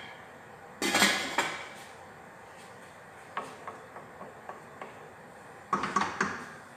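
Metal lid and stainless steel stockpot clattering as the lid is handled, first about a second in and again near the end, with a few light metallic clinks in between.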